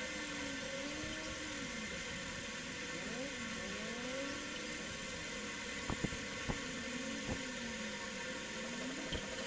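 Steady background hiss with faint wavering tones, broken by a few light clicks of fan parts being handled and fitted, about six and seven seconds in.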